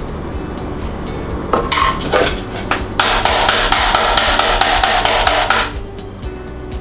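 Hard polycarbonate chocolate mold, filled with chocolate, rapped on the table: a few separate knocks, then about three seconds of rapid rattling knocks that stop abruptly near the end. The tapping knocks air bubbles out of the chocolate in the mold.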